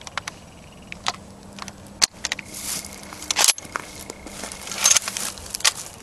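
Footsteps crunching through frost-covered grass, mixed with several sharp clicks and knocks from handling. The loudest knocks come about two and three and a half seconds in.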